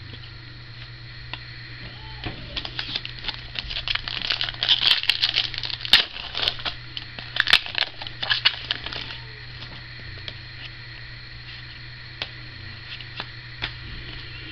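Foil trading-card pack being torn open and crinkled in the hands, a dense run of crackles and sharp snaps from about two seconds in until about nine seconds, then only light handling of the cards. A steady low electrical hum runs underneath.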